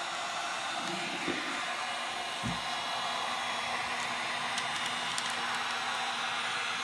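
Wagner HT3500 heat gun running steadily on its high (850/950) heat setting, its fan blowing a constant rush of hot air. A few faint clicks come about halfway through.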